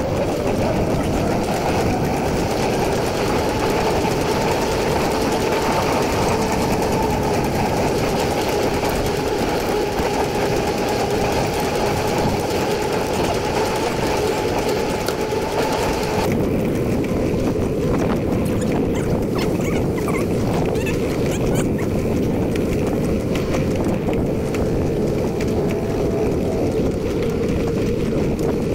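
Bicycle rolling along the trail: steady tyre hum and rushing wind on the microphone. The sound changes abruptly about sixteen seconds in, losing much of its hiss.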